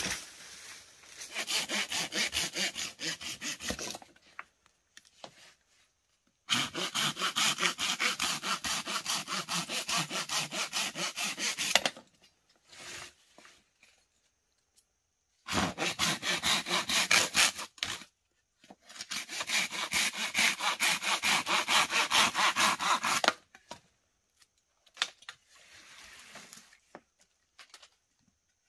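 Hand saw cutting through green bamboo poles, with quick, even back-and-forth strokes about four a second. It comes in four bouts of a few seconds each, with short pauses between.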